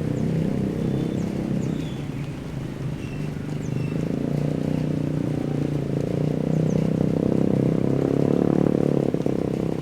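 An engine running with a steady drone that grows louder and then drops off sharply near the end.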